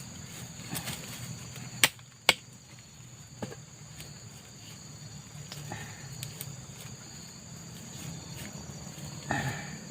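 Steady high-pitched drone of insects, with two sharp loud clicks about two seconds in, a fainter one a little later, and a short burst of sound near the end.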